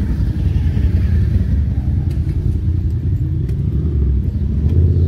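Road traffic with motorbikes and cars moving past, a steady low rumble. A motorcycle passes near the start.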